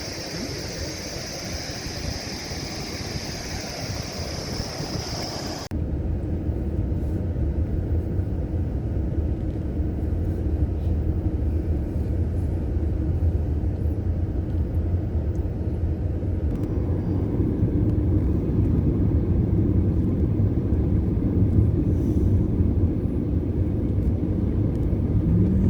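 A car driving with a steady low rumble. About six seconds in it cuts in abruptly, replacing a steady high-pitched hiss over outdoor noise.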